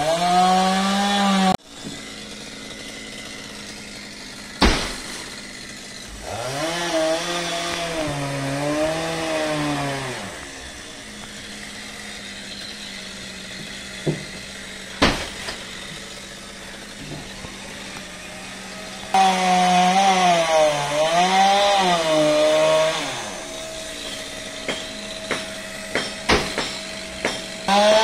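Chainsaw cutting through a coconut palm trunk in bursts, its engine pitch sagging and rising as the chain bites, and running at a steady idle between cuts. Two sharp thuds come in the pauses, from cut sections of trunk landing.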